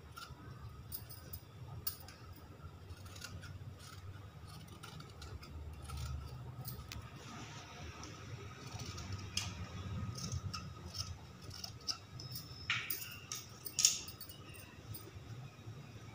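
Scissors cutting through two layers of folded cloth: a run of irregular snips and clicks as the blades close, the sharpest one a little before the end.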